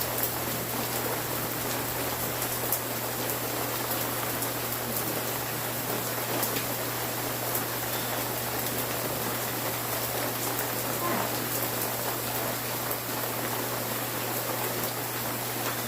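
Steady rain falling, a continuous hiss with scattered sharp drop ticks and a low steady hum underneath.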